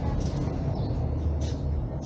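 Motorcycle riding through city streets: its engine running under a steady low rumble, with surrounding road traffic noise and a few short higher sounds about halfway through.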